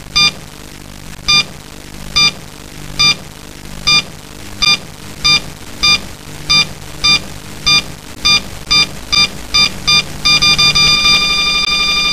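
Synthesized sound design: a high electronic beep repeating over a low steady drone. The beeps come faster and faster until, near the end, they run together into one held tone.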